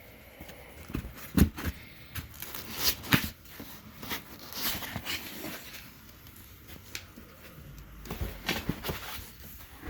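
Packaging and printer parts being handled while unboxing a 3D printer: irregular rustling with scattered knocks and clicks, the sharpest about a second and a half in and again around three seconds.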